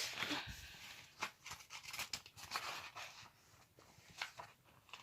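Notebook pages being leafed through: paper rustling in a string of short, irregular bursts that thin out over the last couple of seconds.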